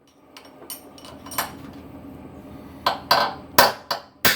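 Hammer striking a steel punch set against seized cylinder-head bolts: several sharp metallic strikes, a few light ones early and a quicker run of harder ones in the last second and a half. The blows are meant to shock the rusted bolts loose while torque is held on them with a socket wrench.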